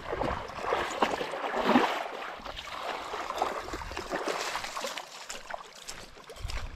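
Water splashing and lapping around a small fishing boat, coming in uneven surges.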